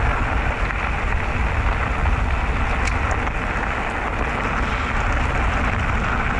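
Steady wind buffeting on the microphone of a mountain biker's action camera, mixed with the rumble of bicycle tyres rolling over a loose gravel track.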